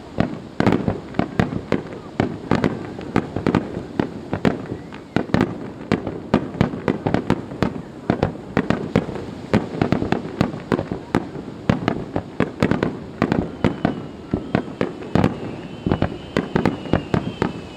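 A dense, rapid barrage of firework bursts, several sharp bangs a second with no let-up, over the rumble of the explosions.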